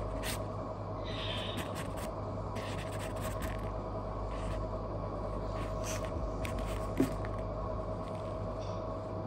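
Light scratching and scraping of a kitten's paws and claws on a foam play mat as it bats at a finger, over a steady machine hum, with one sharp click about seven seconds in.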